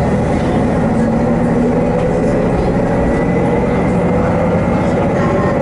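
Haimo 330 diesel railcar under way: a steady drone of its diesel engine mixed with the running noise of wheels on rail, heard from inside the car, with a faint high whine over it.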